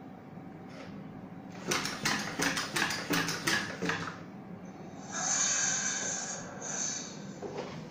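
Lego WeDo 2.0 gorilla robot driven by its motor, its plastic legs and arms clattering on the tabletop in a rapid series of knocks, about five a second, for two seconds or so. A hissing noise follows for about two seconds.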